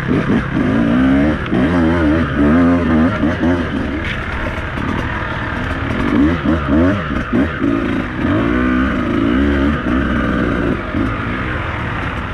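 Beta 200RR two-stroke enduro motorcycle engine under riding load, its pitch rising and falling over and over as the throttle is opened and closed.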